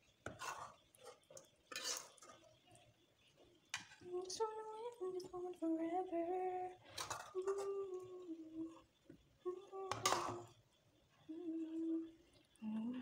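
A person humming a slow tune in held notes, starting about four seconds in. A few sharp scrapes and clinks of a cooking utensil against the pan run through it as the fried vegetables are scooped out.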